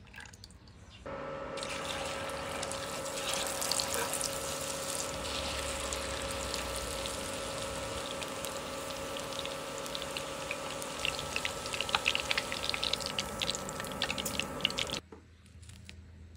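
Battered meat pieces deep-frying in a cast-iron skillet of hot oil: a busy sizzle with many small crackling pops over a steady hum. It starts about a second in and cuts off suddenly near the end.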